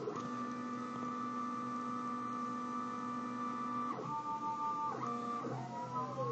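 Stepper motors driving the X and Y stages of a homemade LinuxCNC mini mill whine as they move. A steady set of tones holds for about four seconds, changes pitch twice, then breaks into rising and falling tones near the end as the axes speed up and slow down.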